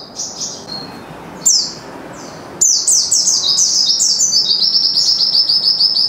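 Caged songbird singing. Softer scattered chirps and a sharp falling call come first, then about two and a half seconds in a loud, fast run of high repeated chirps begins.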